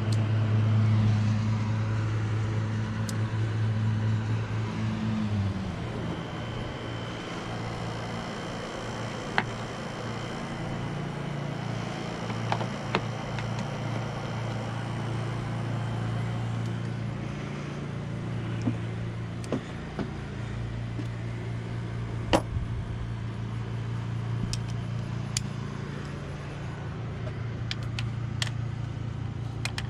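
A steady low mechanical hum that changes to a lower, duller tone about five and a half seconds in, with scattered sharp clicks throughout.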